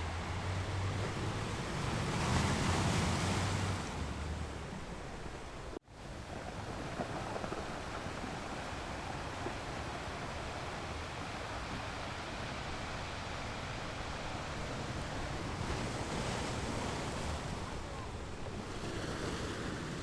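Ocean waves washing onto a shore: one wave swells and breaks about two to four seconds in, followed by a steady wash of surf with fainter swells near the end. The sound drops out for an instant just before six seconds.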